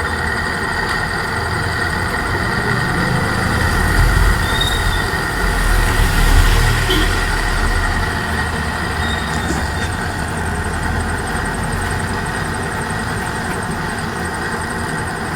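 Gas cutting torch flame burning steadily with a low rumble that swells for a few seconds midway, heating a front-load washing machine drum's spider so that the stuck flange loosens and comes off.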